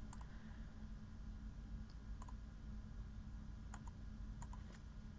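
About half a dozen faint, scattered clicks from a computer keyboard and mouse over a low steady hum.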